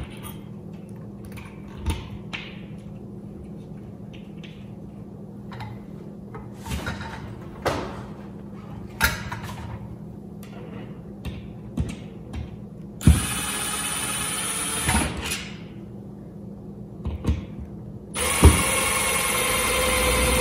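Cordless drill-driver motor running twice, about two seconds each, the second near the end, driving number 6 screws that fasten a light fixture's mounting bracket to a plastic ceiling electrical box. Before the first run, scattered clicks and small knocks of the metal bracket and screws being handled.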